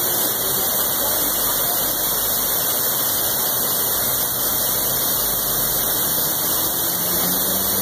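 Water pouring over a low stone weir into the stream below, a steady rushing.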